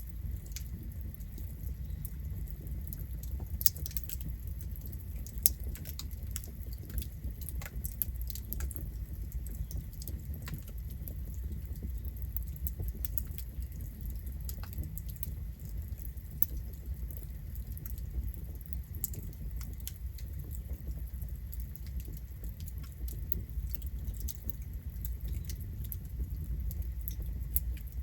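Campfire burning: a steady low rumble with the wood crackling in scattered sharp snaps, and two louder pops a few seconds in.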